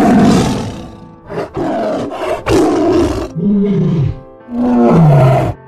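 Tiger roaring and growling: a string of about six loud calls, the last two with low moaning tones that fall in pitch.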